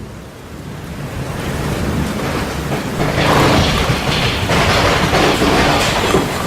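Storm sound effect: a low rumble of thunder building up over the first few seconds, then loud rolling surges of thunder with heavy rain from about three seconds in.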